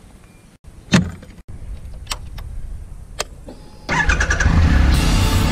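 A few sharp clicks, then the Triumph Explorer XCA's three-cylinder engine is started about four seconds in and runs loudly to the end.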